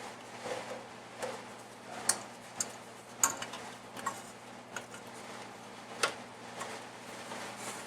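Scattered sharp clicks and clinks of hand tools working on metal, irregularly spaced, about one or two a second. A faint steady hum runs underneath.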